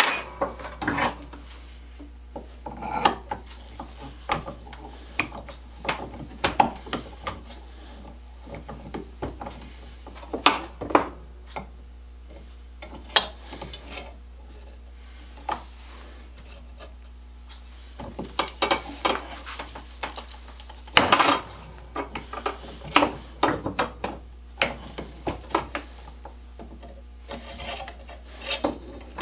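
Irregular metal-on-metal clicks, scrapes and knocks as a hand rod cutter is worked on at the bench and a metal rod is fitted into it. A busier run of clatter builds to one louder knock about three quarters of the way through.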